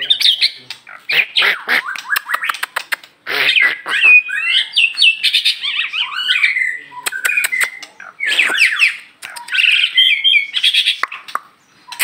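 White-rumped shama (murai batu) singing in full voice: a run of loud, varied phrases of whistles, rapid trills and sharp clicking notes, broken by a few short pauses.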